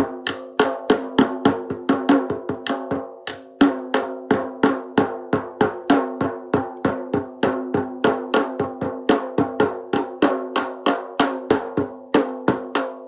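A drum beaten in a steady, fast rhythm of about three to four hits a second, each hit ringing on at the same pitch; the drumming dies away near the end.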